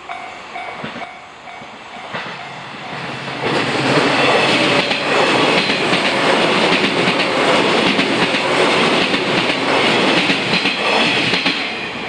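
A 485-series electric train passes through a level crossing, its wheels clattering over the rail joints. It grows loud about three and a half seconds in and begins to fade near the end. A level-crossing warning bell rings under it at the start.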